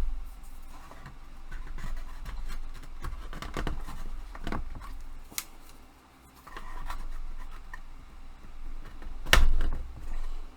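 Slats of a flat-pack tool rack being handled and slid into their slots, with irregular scraping, rubbing and small clicks, and one sharper knock about nine seconds in.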